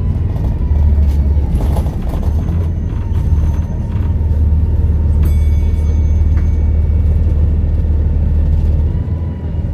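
Volvo B7RLE bus's six-cylinder diesel engine running with a steady low drone, a faint steady turbo whistle above it. A short bright ding sounds about five seconds in.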